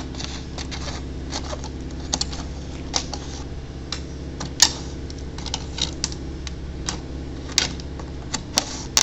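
Hand snips cutting a corrugated PVC roofing panel: a string of sharp, irregular snipping clicks as the jaws close again and again, the loudest a little past halfway.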